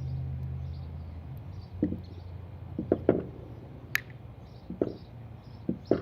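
Scattered light knocks and clicks from the drill press XY table being handled, about seven in all with one sharper click near the middle, over a low hum that fades out in the first second and a half.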